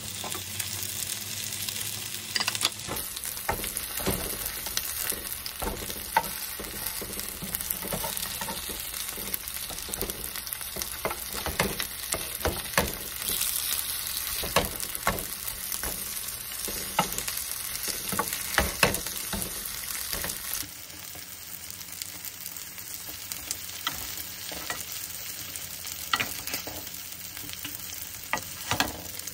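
Pea, corn and cheese fritters sizzling in oil on a nonstick griddle pan: a steady high hiss, with a spatula clicking and scraping against the pan as they are flipped and pressed. The sizzle gets a little quieter about two-thirds of the way through.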